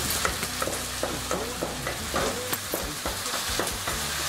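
Pieces of pork loin with chopped herbs sizzling steadily as they fry in a pan. A utensil repeatedly scrapes and knocks against the pan as the meat is stirred.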